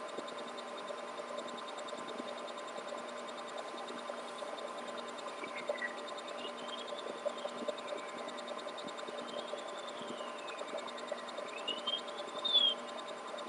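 Steady hiss and hum with soft scratching rustles as a sleeper shifts under a duvet. Three faint whistle-like tones rise and fall in pitch, the last and loudest near the end.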